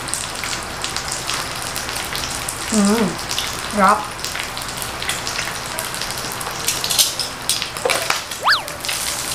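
Pork belly sizzling steadily on an electric grill plate, with scattered light pops and crackles.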